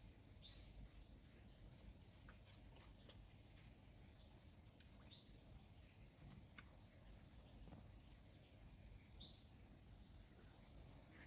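Near silence with faint, short, high-pitched falling chirps every second or two, from small birds calling, and a few faint clicks.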